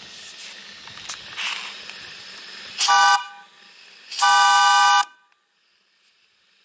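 Brass steam whistle on a small boiler blown twice: a short toot, then a longer blast, each sounding several steady tones at once, after a steady hiss.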